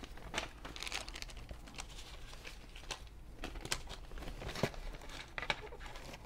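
Packaging crinkling and rustling, with a few scattered light knocks and clicks as tool parts are handled and packed away; the sharpest knock comes a little past the middle.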